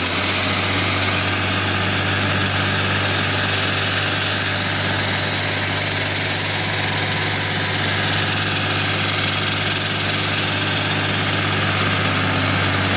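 Diesel engine of a walk-behind concrete floor saw running steadily. A high, even whine sits over its low hum.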